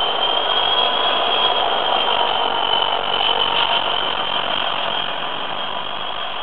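Class 59 diesel locomotive passing close by under power: its EMD two-stroke V16 engine runs hard with a high steady whine over a broad engine noise. The sound is loudest as the locomotive body goes past and eases near the end.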